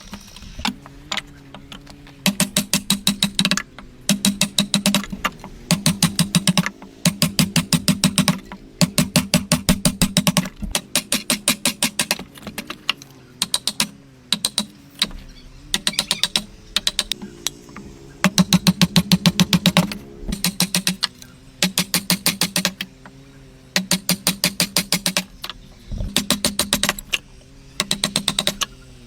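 Hand woodworking chisel struck in rapid runs of sharp knocks, about ten a second, each run lasting a second or so with short pauses between. Soft background music plays underneath.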